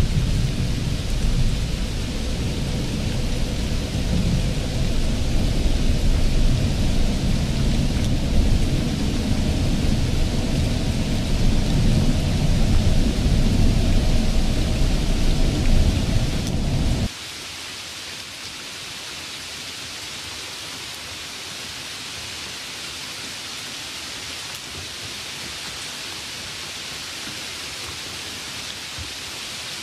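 Steady low rumbling noise with a hiss over it, which cuts off suddenly about seventeen seconds in, leaving only a quieter steady hiss.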